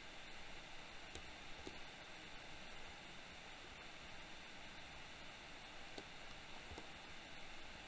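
Faint steady microphone hiss with a few soft computer mouse clicks.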